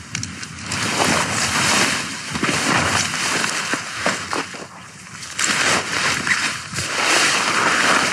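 Hilleberg Soulo tent fabric rustling and crinkling as it is stuffed into its stuff sack by hand, in irregular surges of noise.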